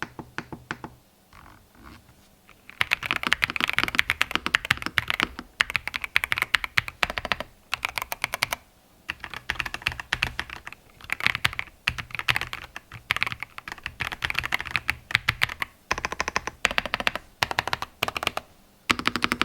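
Royal Kludge S104 full-size mechanical keyboard being typed on in a typing sound test. A few single keystrokes come first, then from about three seconds in, fast typing in bursts of rapid key clicks with short pauses between them.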